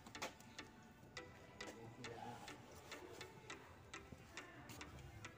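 Faint, irregular ticking clicks, about two a second, over a quiet background.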